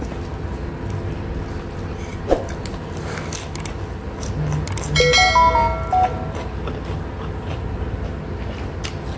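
Fingers mixing rice and lettuce on a plate make faint clicks and rustles, with one sharper click a little after two seconds, over a steady low hum. About five seconds in, a short electronic chime of several quick notes stepping up and down is the loudest sound.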